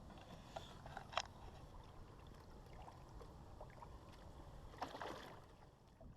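Steady low rush of river water and wind around a small fishing boat, with a few light knocks and clicks about a second in and again near five seconds in.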